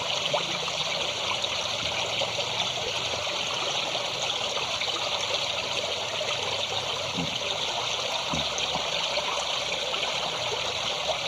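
Waterfall: water falling and splashing in a steady rush, brightest in the upper range and unchanging throughout.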